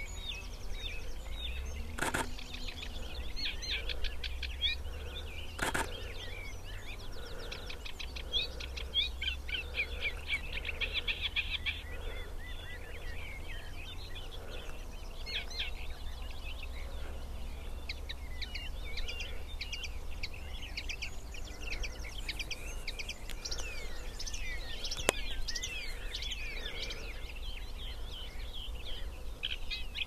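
Reed warbler singing: a long, jerky run of chattering, rapidly repeated churring and chirping phrases, with a steady low rumble underneath and two sharp clicks in the first several seconds.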